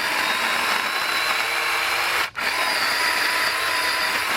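Battery-powered chainsaw lopper running and cutting slowly through wood, its motor a steady whine that cuts out briefly a little over two seconds in and then starts again.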